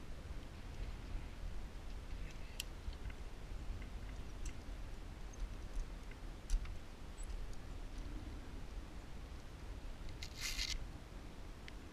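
Climbing gear being handled at a rappel anchor: scattered small clicks of metal carabiners and hardware, and a short rustling hiss about ten seconds in, over a steady low rumble.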